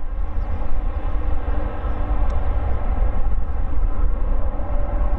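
Gulfstream G550 business jet's twin Rolls-Royce BR710 turbofans at takeoff power as the jet climbs away after liftoff: a loud, steady, rumbling jet noise.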